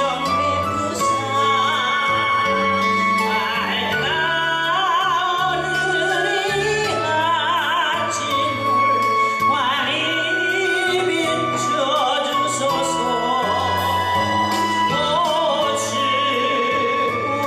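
A solo voice singing a gospel song in an operatic style with wide vibrato, over a sustained instrumental accompaniment with held bass notes.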